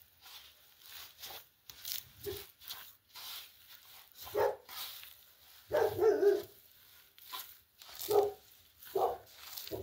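A dog barking in short separate bursts, about five in all, the loudest and longest about six seconds in.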